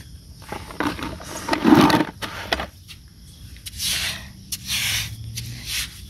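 A wooden stick digging and scraping in wet sand: several rough, irregular scraping strokes, the loudest near two seconds in.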